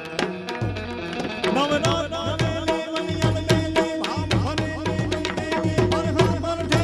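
Tabla played in a fast, dense rhythm, many strokes swooping in pitch from about a second and a half in.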